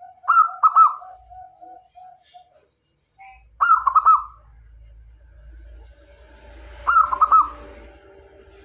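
Male zebra dove (local perkutut) singing: three short phrases of quick, staccato cooing notes, spaced about three seconds apart.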